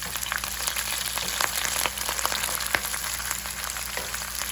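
Sliced onion, green chillies and curry leaves sizzling in hot oil in a frying pan with fried coconut pieces, a steady hiss with frequent sharp crackles and pops.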